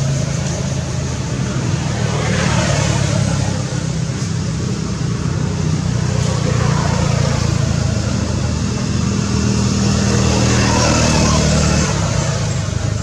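A motor vehicle's engine running steadily, a low even hum.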